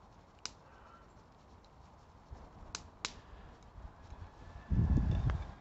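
Sharp, isolated metal clicks as a tin can, tipped out over a steel pan, knocks against its rim while canned meatballs in gravy are emptied out, followed near the end by a brief low rumble.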